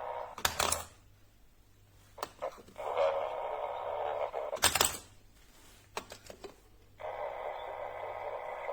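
A baby monitor's small speaker playing a thin hiss in stretches of about two seconds, with sharp clicks in between.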